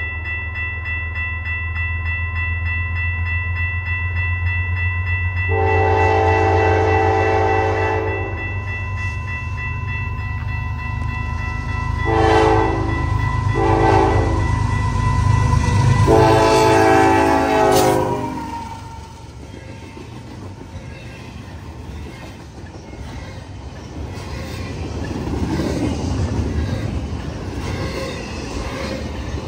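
Diesel locomotive sounding its multi-chime air horn over the low rumble of its engine: a long blast, two shorter ones, then a final long blast. After the horn stops, the train rolls past with steady wheel-on-rail clatter.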